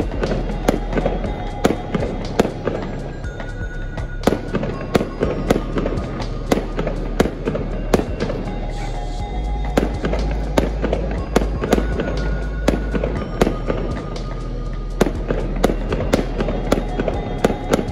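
Fireworks display: a rapid run of sharp bangs and crackles from bursting shells and fountains, several a second, with background music laid over it.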